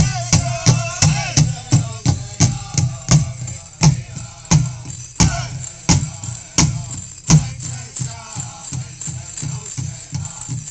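Pow wow drum group playing for a grass dance: one big drum struck in a steady beat, about three strokes a second, slowing to half that pace about four seconds in and growing softer later, with singers chanting over it at the start and again near the end.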